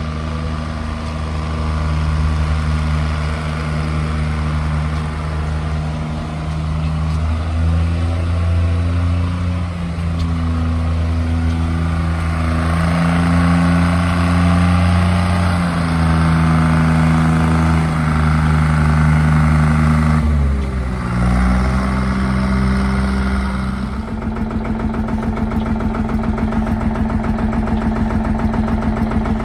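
Heavy engines running: a tanker truck's diesel engine and vintage tractor engines, the note stepping up and down in pitch as they are driven. About three-quarters of the way through, the sound changes to a steady, evenly pulsing engine beat.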